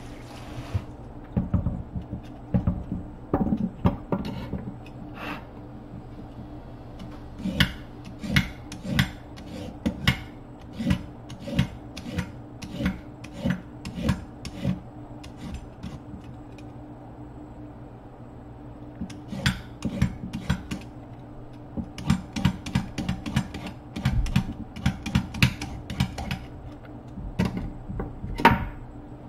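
Vegetable peeler scraping down a carrot over a wooden cutting board, in runs of quick rasping strokes with a pause of a few seconds midway. A steady low hum runs underneath.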